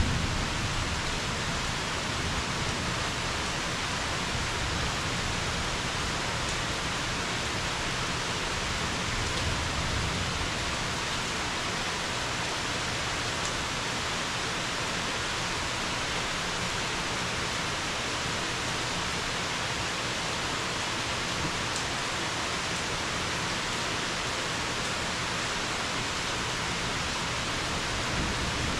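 Steady rain during a summer thunderstorm, falling as an even, unbroken hiss. Near the end a low rumble of thunder begins to build.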